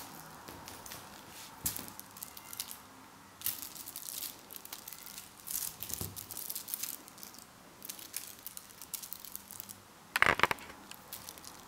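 Irregular scratchy rustling and crinkling from a kitten scrabbling and pouncing on a quilted bedspread, with a short louder sound about ten seconds in.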